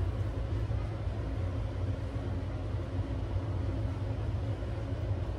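Steady low rumble with a faint even hiss, kitchen background noise with no distinct events.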